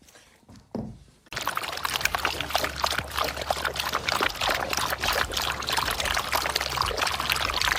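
Water pouring and splashing, starting suddenly about a second in and running steadily, with many small crackles over a low hum.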